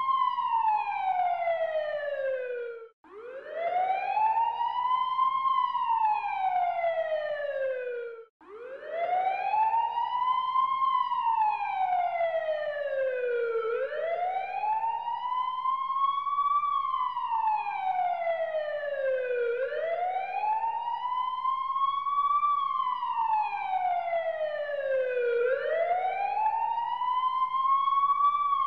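A siren wailing slowly, each cycle rising and then falling in pitch over about five to six seconds. It cuts out for a moment twice in the first nine seconds.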